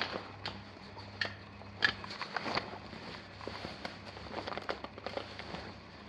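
Scattered faint clicks and crackles, a dozen or so at uneven intervals, over a faint steady low hum.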